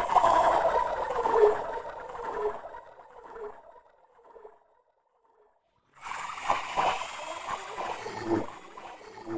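Two eerie, low moaning scary sound effects. The first starts suddenly, slides down in pitch and fades over a few seconds; after a short silence a second, rougher and rattling one begins.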